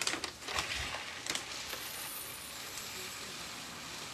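Garlic frying in oil in a pan, a steady sizzle, with a few light clinks of kitchen utensils in the first second or so.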